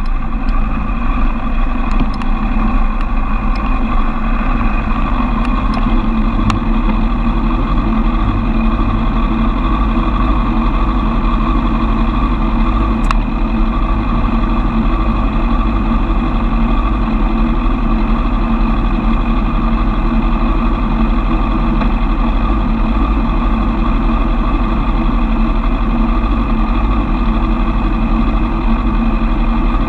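Suzuki Bandit 1200's air/oil-cooled inline-four engine idling steadily while the bike stands in traffic.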